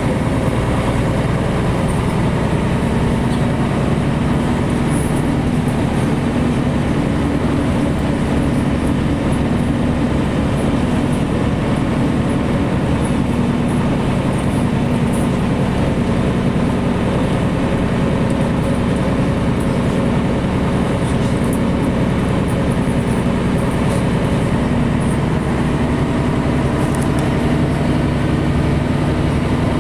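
Steady drone of a moving bus heard from inside the passenger cabin: engine hum with several low steady tones over road and cabin noise, running evenly without change.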